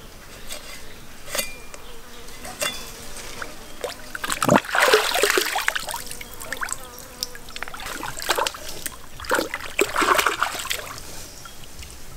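A meat cleaver knocks sharply a few times into a hanging chicken carcass in the first few seconds. Then stream water splashes and sloshes in two louder bursts as the whole plucked chicken is dipped and rinsed, over a faint steady insect buzz.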